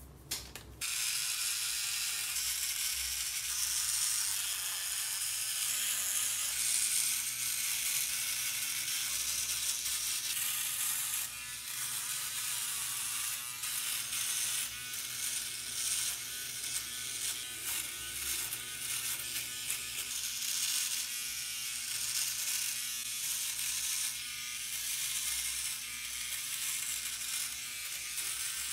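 Philips OneBlade electric trimmer running, switching on under a second in, then buzzing steadily as its oscillating blade cuts through beard stubble, the rasp shifting as it is stroked over the chin and jaw.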